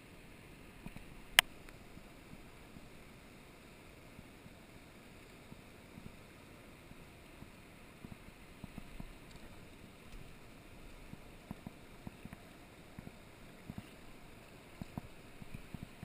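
Rushing river water flowing over rocks, heard low and steady, with scattered small knocks and splashes and one sharp click about a second and a half in.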